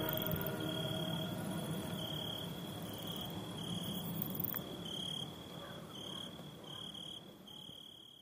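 Insects chirping in a steady pulsing rhythm, about one high trill every 0.7 s, fading out near the end.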